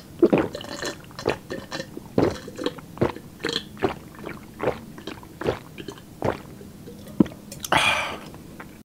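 A person gulping water from a glass jar in a long run of swallows, about two a second, ending near the end with a breathy exhale.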